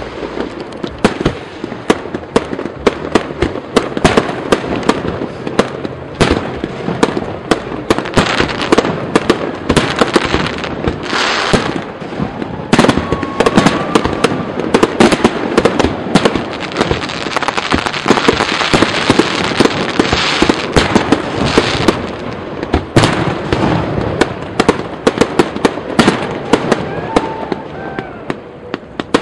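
Aerial fireworks display: a quick, unbroken barrage of shell bursts and crackles, thickest about two-thirds of the way through.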